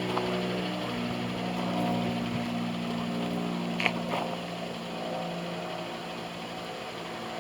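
An engine running steadily, a low hum with several steady pitches that fades after about six seconds, with a brief click partway through.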